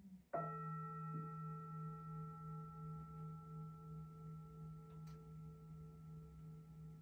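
A Tibetan singing bowl struck once and left to ring: a low hum with several higher overtones, slowly fading and gently wavering.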